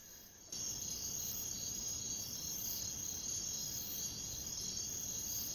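A steady chorus of chirring insects that starts suddenly about half a second in.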